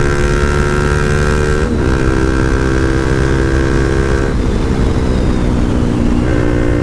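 Motorcycle engine running at a steady highway cruise, with heavy wind rumble on the rider's microphone. The engine note wavers briefly a few times.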